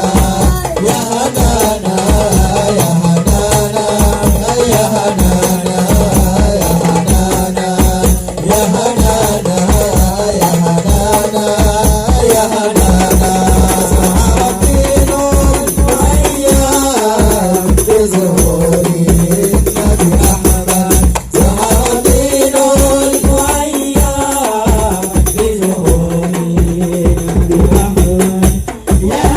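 Hadroh ensemble of frame drums and bass drum playing a fast, steady Islamic devotional rhythm, with a melody line carried over it.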